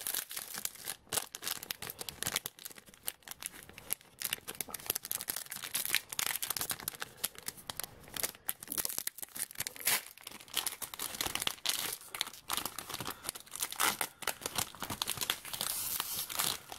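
Foil wrapper of a My Little Pony Series 3 trading card fun pack being torn open and crinkled, with irregular crackling throughout.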